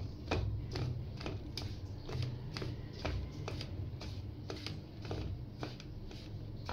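Flour being mixed by hand with yogurt and ghee in a steel bowl: dry rustling and frequent light, irregular clicks and taps against the metal bowl, over a low steady hum.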